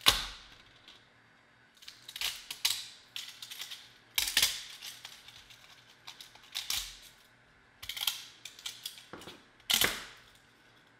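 ABS 3D-print raft and support material snapping and crackling as it is broken away from the printed speaker pod by hand. There is a sharp crack right at the start, then more cracks and crackles every second or two, with quiet between.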